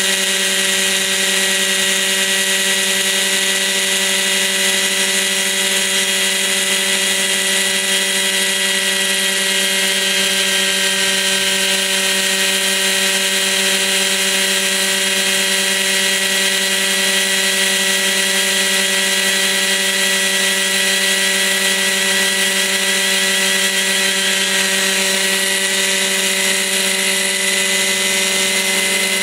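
Kalt Baron α 60 model helicopter's O.S. .61 SX two-stroke glow engine running steadily, with a high-pitched drone and a whine whose pitch rises slightly near the end.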